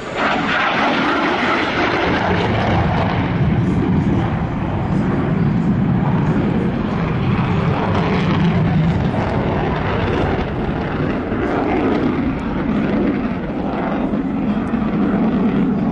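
F-15 fighter jet's twin engines running in afterburner during a display pass: loud, steady jet noise that comes up sharply a moment in and holds at full strength.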